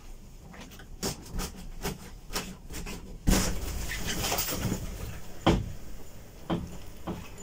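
Strong wind buffeting the microphone, with scattered knocks and crackles, then a sudden loud gust about three seconds in that keeps blowing hard.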